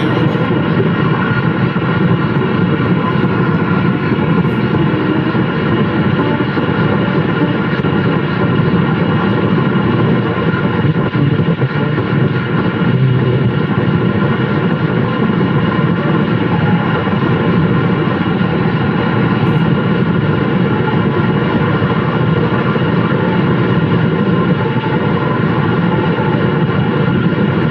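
Car radio tuned to 1440 AM playing loud, steady static through its speaker: an even rushing hiss with a few faint steady whines in it.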